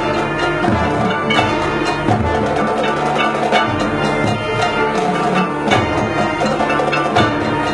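High school marching band playing its show music, with the percussion section striking throughout.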